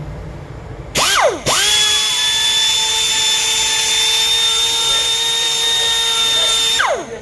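Handheld electric power tool spinning up with a rising whine, cutting out for a moment and starting again, then running at a steady pitch for about five seconds before winding down near the end, followed by a couple of short blips of the trigger.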